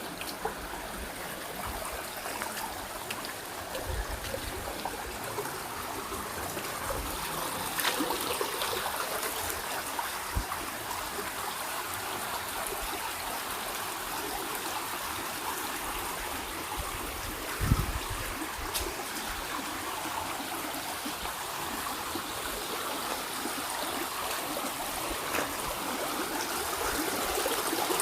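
River water running steadily over rocks, a continuous rushing and trickling, with a few low thumps, the loudest about two-thirds of the way through.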